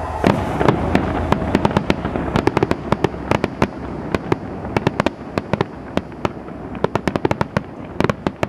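Fireworks display: many sharp cracks and bangs in quick irregular succession from shells and rockets firing and bursting, with a dense cluster near the end.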